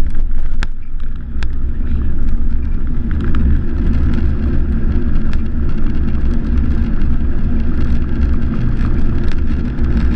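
Cabin noise of a jet airliner rolling down the runway after touchdown: a loud, steady low rumble with scattered clicks and rattles.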